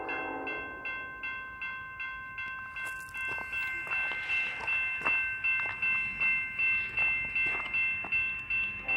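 A railroad warning bell rings in a steady rhythm of about two strokes a second, signalling an approaching train. The ringing grows louder partway through, and the tail of a train horn ends just at the start.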